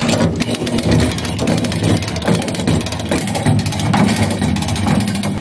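Hand-cranked come-along cable winch being ratcheted, with rapid clicking of its pawl as the handle is worked to take up tension on the steel cable. A steady low hum runs underneath.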